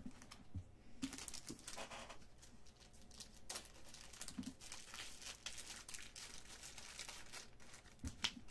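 Plastic packaging crinkling and tearing as it is handled, with a few soft knocks.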